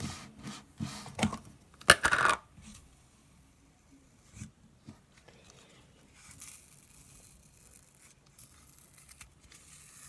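A few sharp knocks and a scraping clatter in the first two seconds or so, then the faint crackling sizzle of a light purple fluffy slime being handled and stretched.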